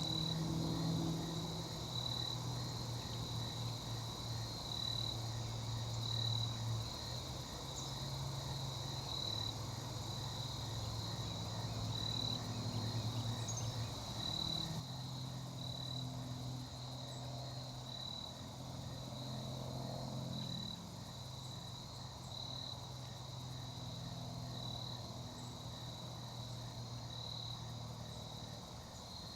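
Insects chirping in an even, pulsing high trill, over a low hum that comes and goes.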